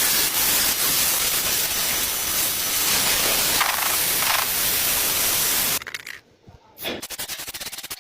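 A steady, loud spraying hiss that cuts off suddenly about six seconds in, followed by faint rapid ticking.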